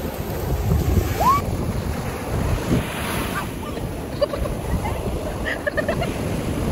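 Surf breaking and washing up the beach, with heavy wind noise buffeting the microphone.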